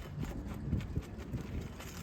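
Irregular light knocks and thumps with faint clicks, from a nail-removal tool being worked under asphalt roof shingles.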